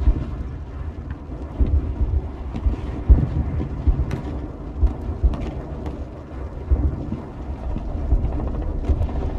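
Battle ambience: a continuous low rumble of distant explosions and artillery, with heavy booms every second or so and a few sharp cracks like scattered gunshots.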